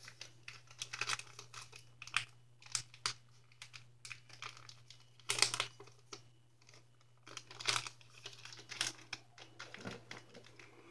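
Sheet of origami paper rustling and crinkling as it is folded and its creases pressed flat by hand. It comes in irregular bursts, with a quiet pause about six seconds in.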